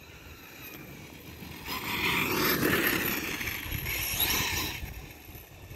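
Arrma Kraton 1/8-scale RC monster truck's electric motor and drivetrain whining as it drives across grass. The sound swells up about two seconds in and fades near the end.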